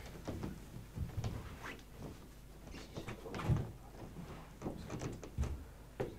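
Faint, scattered knocks and thumps, with a louder low thump about three and a half seconds in and another about five and a half seconds in.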